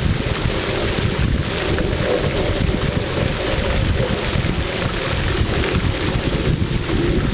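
Steady, loud rushing water noise from a pond, continuous with no breaks.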